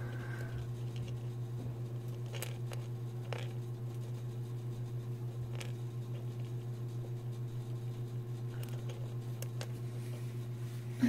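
Scattered faint clicks and scratches of a hamster moving about and nosing at the phone up against it, over a steady low hum.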